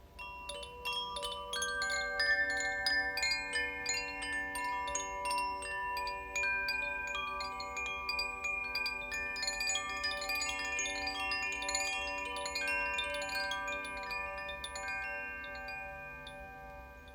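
Tuned wind chimes ringing, many clear notes struck in quick, irregular succession and overlapping as they sustain. The ringing starts suddenly, thickens over the first couple of seconds, then thins and fades toward the end.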